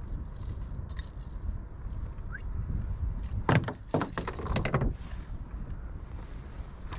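Wind rumbling on the microphone, with small metallic clicks from pliers and the hooks of a lure being worked free of a pike's mouth. About halfway through comes a louder burst of rattling and knocking as the lure comes out and the fish is handled.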